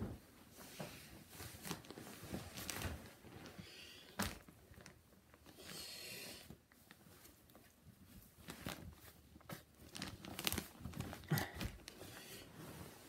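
Close rustling and crinkling with irregular light knocks, the sound of things being handled right by the microphone, with a longer hissing rustle about six seconds in.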